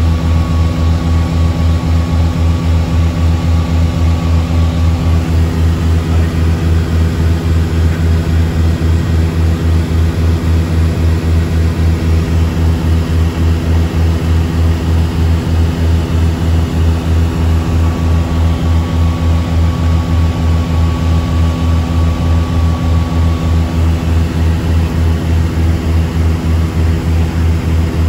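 Cabin drone of a Piper Seminole PA-44's two four-cylinder Lycoming piston engines and propellers in flight, heard from inside the cockpit. It runs loud and steady, with a low, fast, even throb.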